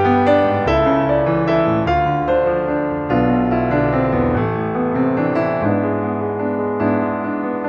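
Background piano music: gentle notes over held bass tones.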